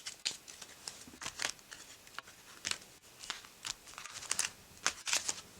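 A deck of oracle cards being shuffled and handled: irregular crisp papery flicks and rustles of card stock.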